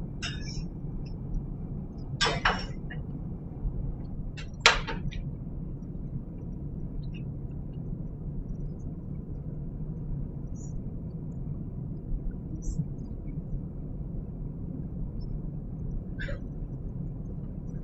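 Cookware being handled over a steady low hum: a pot or pan clatters about two seconds in, and a sharper clank comes about two seconds later, the loudest sound. A few light taps follow near the end.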